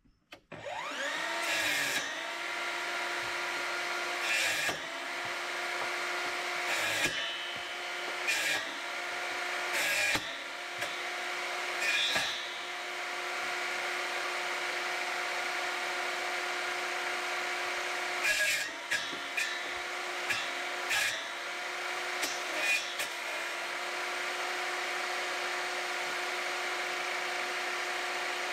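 Einhell TE-TS 36/210 cordless table saw spinning up with a rising whine, then running steadily. Its pitch sags briefly and recovers again and again, with a short crack each time, as the blade takes load cutting wood.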